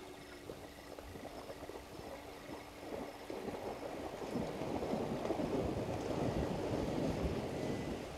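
Water splashing hard in a waterhole, starting about three seconds in, building to a loud, dense splashing and stopping suddenly near the end.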